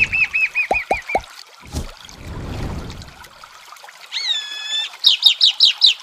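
Chalk-browed mockingbird (sabiá-do-campo) singing: a fast run of about seven repeated notes at the start, a single clear whistled note a little after four seconds, then another fast run of about seven higher notes near the end. Trickling, dripping water underneath.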